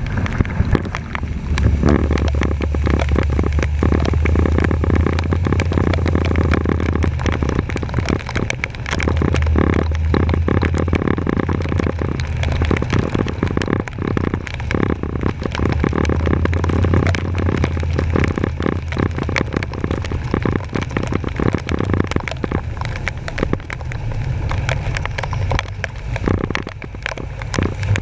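Truck driving through floodwater, heard from a bumper-mounted GoPro: water splashing and spraying against the camera in a constant crackle, over the low, steady drone of the truck's engine.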